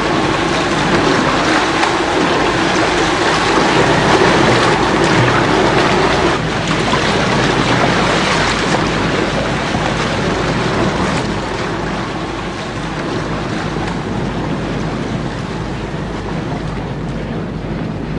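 Motor ship running with the rush and splash of its bow wave over a low steady engine drone, loudest for the first six seconds or so and then easing off.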